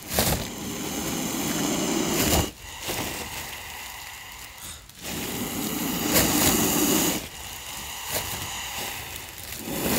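Indian cobra hissing in long exhaled breaths, each about two seconds, with quieter pauses between. Two full hisses, and a third begins near the end.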